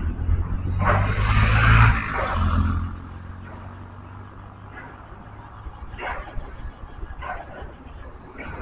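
Riding a motorcycle: engine and wind rumble on the microphone, loud with a rush of hiss over the first three seconds, then a lower steady rumble. A few short sharp sounds come about a second apart in the last few seconds.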